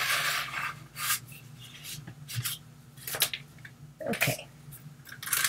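Plastic smoothing tool scraping excess modeling paste off the top of a plastic stencil: one long scrape at the start, then a few short scrapes.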